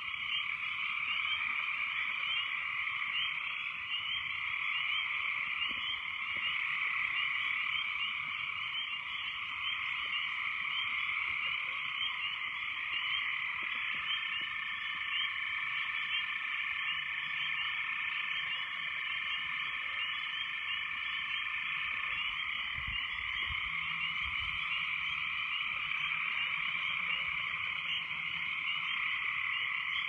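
Dense chorus of many frogs calling at once after heavy rain, a steady wall of overlapping calls. About halfway through, a single steady high tone is held for several seconds above the chorus.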